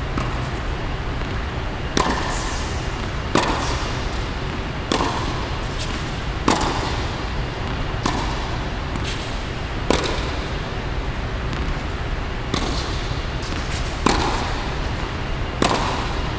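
Tennis ball struck by a racket and bouncing on a hard court: sharp pops about every second and a half, with fainter knocks between them, echoing in a large indoor hall over a steady low background noise.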